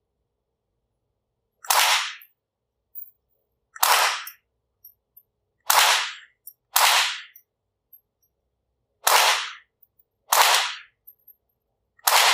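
Seven single shots from a Rossi RS22 semi-automatic .22 LR rifle, fired at an uneven pace about one to two seconds apart.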